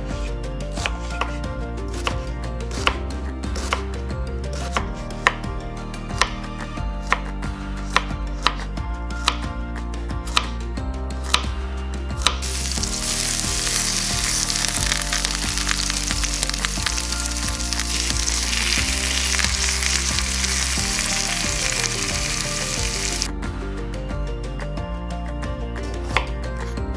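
Kitchen knife chopping an onion on a wooden cutting board in sharp, steady strokes. About twelve seconds in, this gives way to minced meat and spaghetti sizzling in oil in a frying pan for about ten seconds. Near the end the knife cuts a red bell pepper on the board again, with background music underneath throughout.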